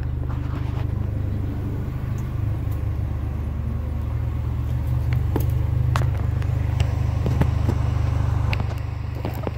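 Turbocharged 2.0-litre four-cylinder engine of a 2017 Chevrolet Camaro idling steadily through a 3-inch Borla cat-back exhaust, with scattered footsteps on concrete.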